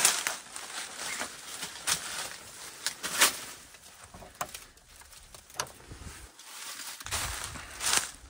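Slow footsteps crunching over debris, with a short crunch or crack about every one to two seconds.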